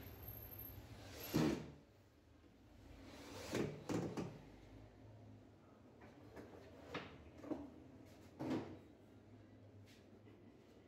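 Several separate wooden knocks and clunks as tools and cabinet parts are handled and set down on the bench: the loudest about a second and a half in, a quick cluster around four seconds, and a few more later on.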